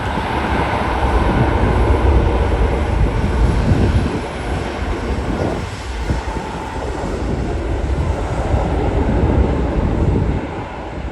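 Emirates Airbus A380's four jet engines at takeoff power, a loud, low, heavy noise that eases briefly about halfway through and falls off a little near the end.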